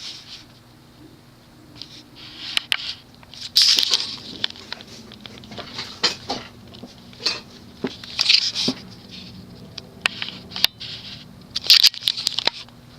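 Hunter Colonial II ceiling fan's spinner motor running on medium speed with a steady low hum. Irregular short scratchy rustles and clicks come and go over it, loudest about four, eight and twelve seconds in.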